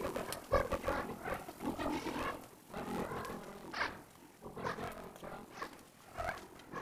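Lumps of sodium metal reacting with water as they burn, sputtering and popping irregularly.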